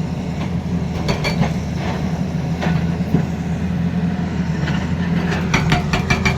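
Tata Hitachi Zaxis excavator's diesel engine running steadily, with short runs of sharp metallic clanking now and then, the quickest run near the end.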